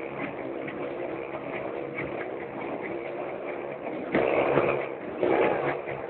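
Motorbike engines running inside a steel globe of death, with two louder revving surges about four and five seconds in.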